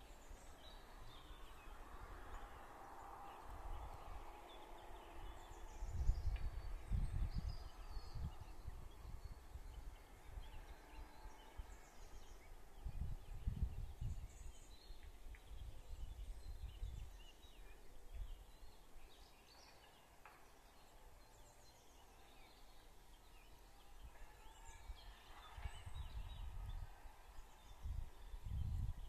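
Wind buffeting the microphone in irregular low gusts, strongest about six seconds in, again around thirteen seconds and near the end, with faint short bird chirps.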